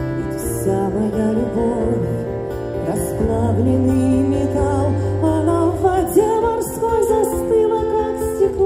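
A woman singing a melody into a microphone over plucked acoustic guitar, with held low bass notes underneath.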